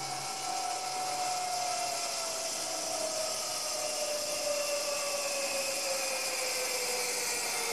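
Zip line trolley running down the steel cable toward the landing platform: a whine that slowly falls in pitch over a steady hiss.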